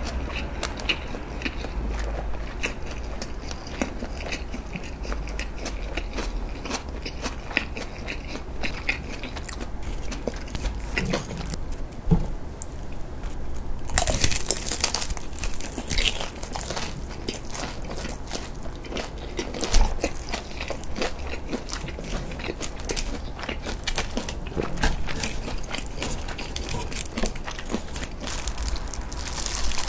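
Close-miked chewing with many fine wet clicks. About halfway a crisp bite into a deep-fried ham-and-cheese mille-feuille, then crunchy chewing.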